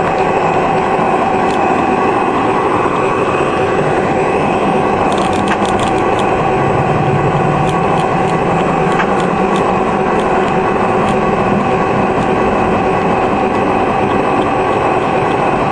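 O27-gauge model train running along its track: a steady motor hum with a fixed whine and rolling wheel noise, and a run of sharp clicks from about five seconds in, as the wheels pass over rail joints.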